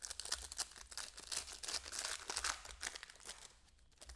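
Trading-card packaging crinkling and tearing as it is opened by hand: a dense run of crackles that thins out near the end.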